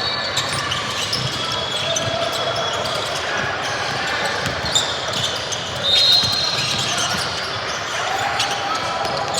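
Basketball game sounds echoing in a gym: a ball bouncing on the court, short high sneaker squeaks, and a murmur of voices from players and spectators.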